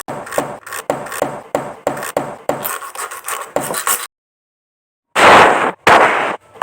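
Rapid scraping or rubbing strokes, several a second, for about four seconds; they stop dead, and after a second of silence two loud noisy bursts come near the end.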